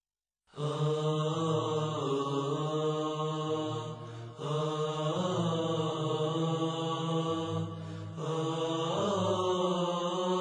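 Chant-like nasheed intro: sustained voices over a steady low drone, starting about half a second in, with short dips near four and eight seconds.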